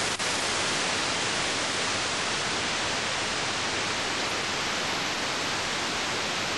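Steady, loud hiss of static noise across all pitches, with no speech or other sound over it.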